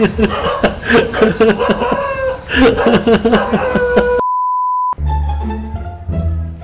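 Voices chattering and laughing, cut off about four seconds in by a steady 1 kHz beep lasting under a second. Plucked-string background music with a bass line then starts.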